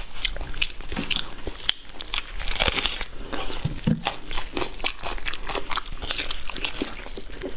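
Eating sounds: biting and chewing braised meat, with crinkling of disposable plastic gloves as the hands tear the meat apart, in many short irregular clicks and rustles.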